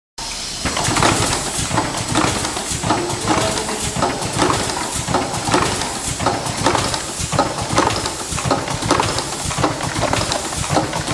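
Semi-automatic cartonating machine running, its rotary turret and carton-handling mechanisms clacking in a fast, even rhythm of a few knocks a second.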